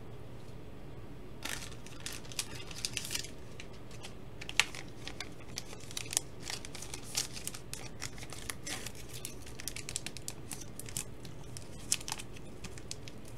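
Clear hard plastic trading-card holder being handled and turned over, giving irregular light clicks and plastic crinkling over a steady low room hum.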